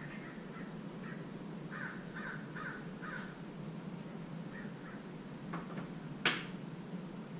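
A bird calling outdoors: a quick run of four short calls about two seconds in, then a few fainter ones, over a steady low hum. A single sharp click near the end is the loudest sound.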